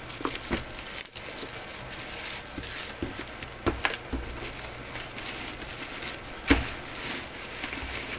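Plastic film wrapping crinkling as it is handled and pulled off the parts of a pet drinking fountain, with a few sharper crackles, the loudest about six and a half seconds in.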